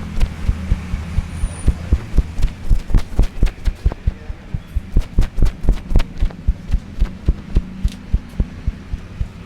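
Massage strokes: a barber's hands striking the head, neck or back in a quick, even rhythm of about four to five thumps a second, over a steady low hum.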